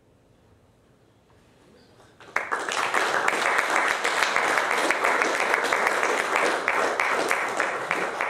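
Near silence, then an audience breaks into applause about two seconds in: a dense patter of many hands clapping that holds steady, ending the chess match.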